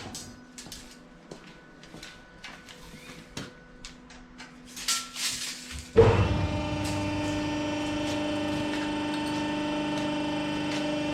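Clinks and scrapes of steel bar being handled, then about six seconds in an electric cutting tool's motor starts abruptly and runs with a steady hum, ready to cut 12mm round bar to length.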